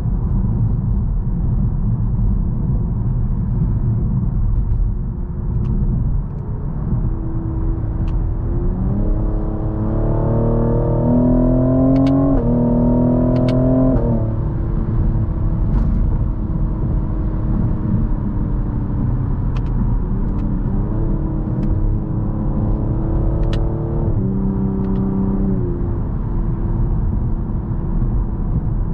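Cadillac CT5-V's twin-turbocharged 3.0-litre V6 over a steady road rumble, pulling hard twice. Each time the engine note rises, drops at an upshift and rises again, then falls away as the throttle eases. A few sharp ticks come during the pulls.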